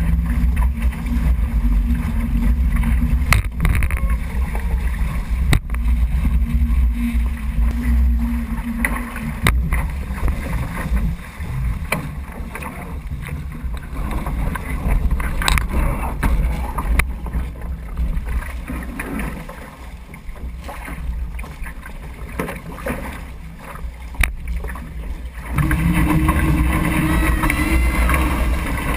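Water rushing and spraying off the hulls of a Weta trimaran sailing fast, with wind buffeting the microphone in a deep rumble. A low steady tone comes and goes, and the rush eases in the middle and grows louder again near the end.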